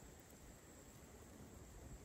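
Near silence: a faint, even hiss with a couple of tiny ticks.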